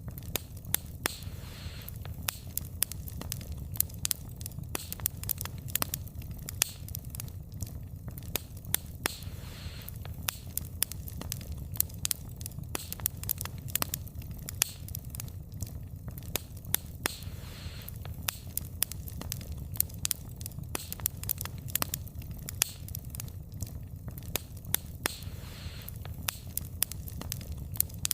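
Wood fire burning: frequent irregular sharp pops and snaps of the burning logs over a low steady rumble of the flames.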